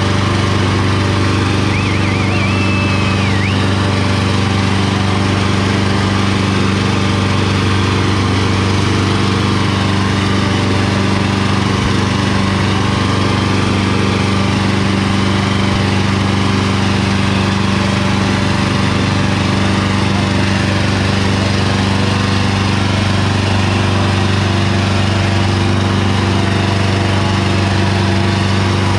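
Sonalika DI 750 III tractor's diesel engine running loud and steady at one constant pitch under heavy load, pulling two disc harrows through dry soil.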